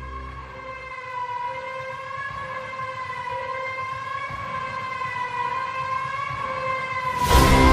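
Background music: a held, slightly wavering tone with overtones, which a tagger can mistake for a siren. Near the end a louder, fuller passage with low bass notes comes in.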